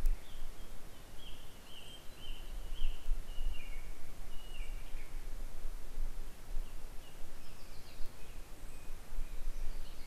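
A bird singing a run of short high notes in the first half, with a few fainter notes later, over a steady uneven low rumble on the trail camera's microphone.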